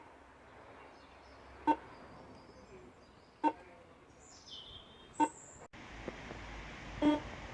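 Carver trike's indicator warning beeper sounding in short beeps, one about every second and three quarters, four times.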